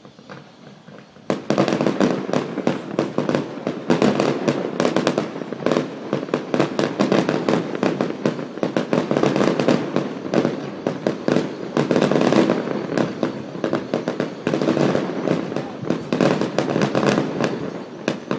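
A fireworks display: after about a second of quiet, a dense, continuous barrage of bangs and crackles starts suddenly and keeps going without a break.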